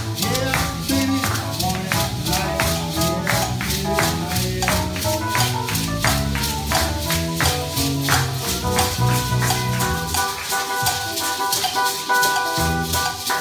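Many hand-held maracas and egg shakers shaken in a steady rhythm along with music. The music's low notes drop away about ten seconds in, while the shaking goes on.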